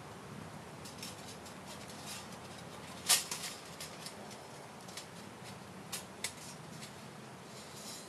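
Scattered clicks and knocks of small hard objects being handled, with one sharp clack about three seconds in and a few lighter ones after it. A faint steady low hum runs underneath.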